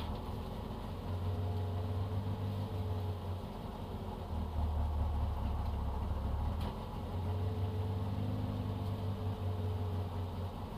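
Citroën AX GTI rally car's small four-cylinder engine idling steadily, heard from inside the cabin while the car waits at the stage start; the low hum swells and dips a little now and then.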